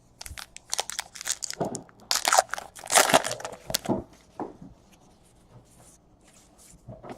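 Plastic-foil trading-card pack wrapper being torn open and crinkled by hand, a run of loud crackling rustles that fade to a few faint ones in the last few seconds.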